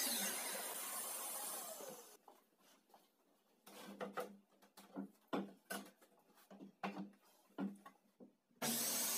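A circular saw winding down after a cut, its whine falling over the first two seconds, then wooden boards knocked and set down on a wooden tabletop in a series of light knocks. Near the end a loud steady power-tool noise starts suddenly.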